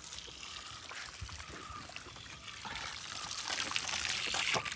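Water pouring and trickling from a drinking-water tap, growing louder over the last couple of seconds.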